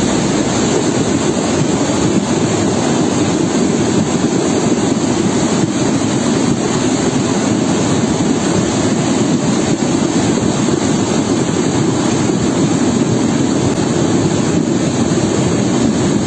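Steady rushing of a muddy flash-flood torrent pouring down a street.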